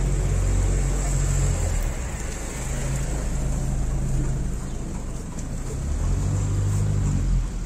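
Low engine rumble of street traffic, with motor vehicle engines swelling and fading a few times over a steady background noise.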